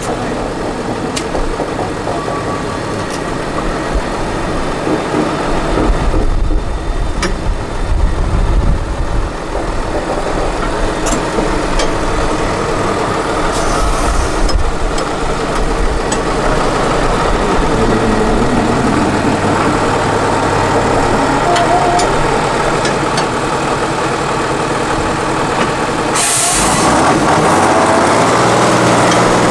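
Tatra 8x8 trial truck's diesel engine working hard under load as the truck climbs a steep dirt slope, its pitch shifting up and down in the second half. Two short hisses cut in, about halfway through and near the end.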